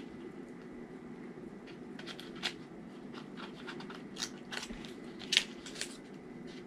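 Lipstick packaging being opened by hand: scattered light clicks and crinkles, the sharpest just past the middle, over a steady low hum.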